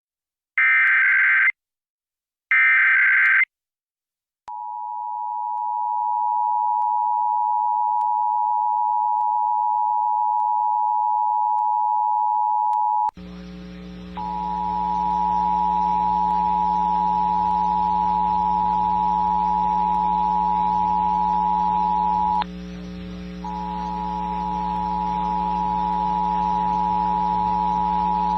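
Emergency Alert System broadcast tones: the last two short, raspy SAME header data bursts, then the EAS two-tone attention signal (853 and 960 Hz sounded together) holding steady. About 13 s in, the sound switches to another broadcast of the same attention tone over radio hiss and a low hum, which drops out briefly twice.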